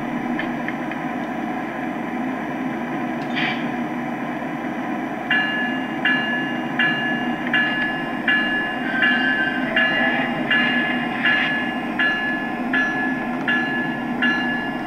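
Lionel ES44 model diesel's onboard sound system playing a steady diesel engine rumble, with a short hiss about three seconds in. About five seconds in, the locomotive bell starts ringing, a little over one strike a second, as the engine gets under way.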